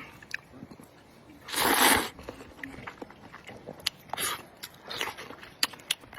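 Close-up eating sounds from a bowl of spicy noodle soup: one loud slurp about a second and a half in, then chewing with wet mouth clicks and a couple of shorter slurps.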